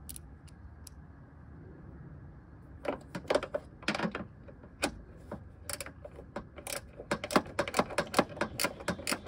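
Swivel-head ratcheting wrench clicking as it turns a 10 mm hood hinge bolt. A few scattered clicks come first, then from about halfway a fast, even run of ratchet clicks at about four a second.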